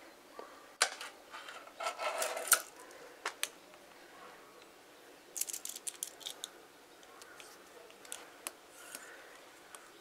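Scattered light clicks and short scrapes of hard objects handled close to the microphone, likely metal sticks against the viewing glass, with a busier run of clicking about two seconds in and again around the middle.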